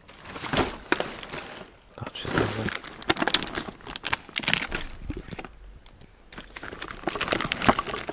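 Plastic bags and food wrappers crinkling and rustling in several bursts as hands rummage through them.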